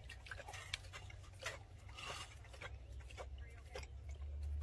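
Tiger lapping water, soft wet clicks coming roughly twice a second, over a low steady hum.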